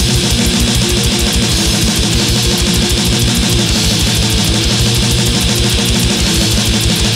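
Black metal recording: dense distorted electric guitars over a fast, even drum pulse, loud and unbroken.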